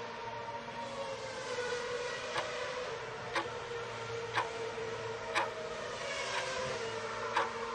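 Countdown-clock ticks, one sharp tick a second starting about two and a half seconds in, over a steady droning background sound bed.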